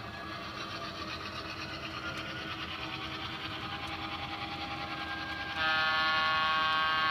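Athearn Genesis FP7 model diesel locomotive running along the track with a fine steady clatter, then its onboard sound system sounding one long, steady multi-tone horn blast from about five and a half seconds in, the loudest sound here.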